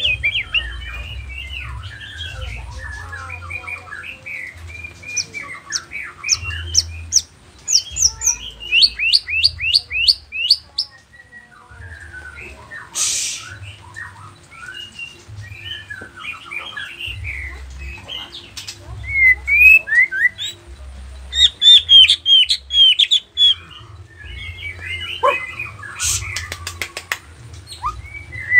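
White-rumped shama of the Nias form singing a long, varied song of whistles and chattering phrases, with quick runs of rising notes a few seconds in and again past the middle.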